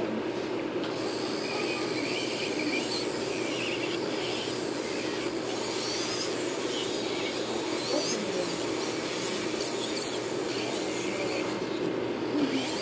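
Electric nail drill running with a sanding band bit against an artificial nail, a steady hum with a high whine that wavers in pitch as the bit is pressed on and eased off the nail.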